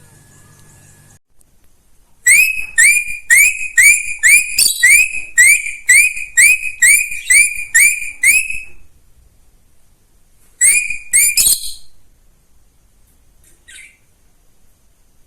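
A small bird calling loudly: a run of short, upward-sweeping chirps, about two a second for some six seconds, then after a short pause three more in quick succession.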